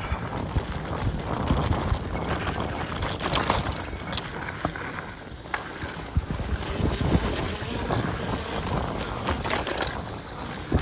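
Mountain bike riding fast down a dirt trail: wind buffeting the microphone over the tyres rolling on the ground, with frequent knocks and rattles as the bike goes over bumps.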